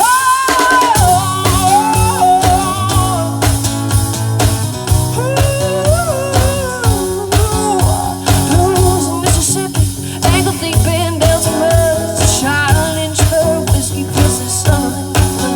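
A live band playing a song, with a singer's melody over electric guitar, bass and a steady drum beat.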